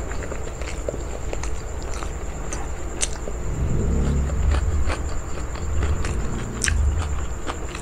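Close-miked eating sounds: chewing with many short, soft mouth clicks and smacks. A low rumble swells about halfway through and again near the end.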